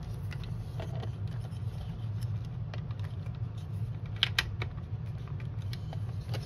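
Light plastic clicks and rattles as a Dyson stick vacuum's clear dirt bin is handled and fitted onto the body, with a few sharper clicks about four seconds in. A steady low hum runs underneath.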